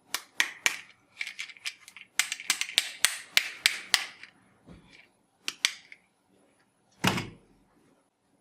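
Small plastic toys being handled: a quick run of light clicks and taps, two more a little later, then one heavier knock about seven seconds in.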